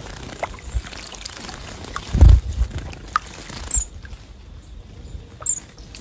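Small white-eyes bathing in a bird bath: fluttering wings and splashing water, loudest in a burst about two seconds in, with smaller splashes around it. Two short, high chirps come in the second half.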